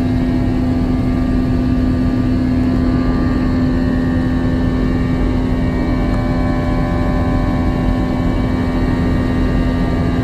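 Airbus A321's IAE V2500 turbofan engines heard from inside the cabin during the climb-out. The drone is steady, with one strong low hum and several fainter higher tones over rushing noise.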